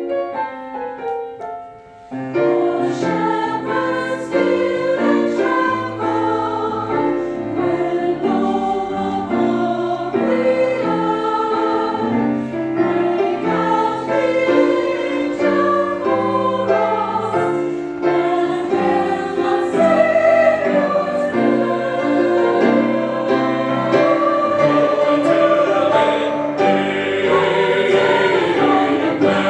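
Church chancel choir singing in parts. A short piano passage dies away over the first two seconds, then the full choir comes in.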